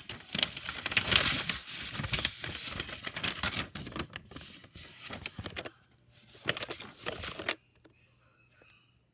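Packaging rustling and crinkling as it is handled, with many small clicks. It comes in a long bout and then a shorter one, stopping about a second and a half before the end.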